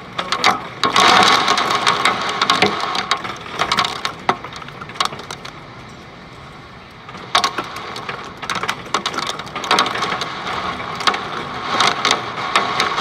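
Hail hitting double-pane glass windows in a dense clatter of sharp ticks. It eases off about halfway through, then comes thick again.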